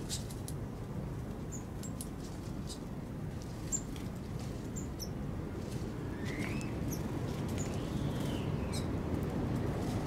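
Small birds at a ground feeder giving scattered short, high chirps and faint ticks over a steady low rumble. Two longer calls that rise and fall in pitch come about six and eight seconds in.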